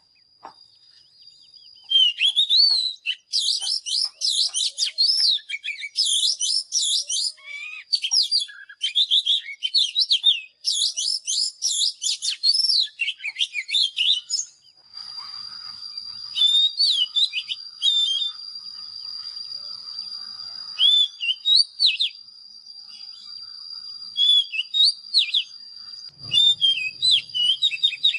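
Oriental magpie-robin singing: quick runs of sweet whistled notes and chirps that glide up and down in pitch, packed tightly for the first half. In the second half the phrases come more sparsely over a steady high whine, with a brief low rumble near the end.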